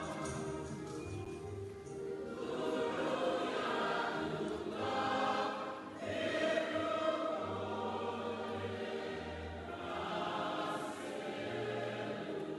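Background choral music: a choir singing sustained, held chords that change every couple of seconds.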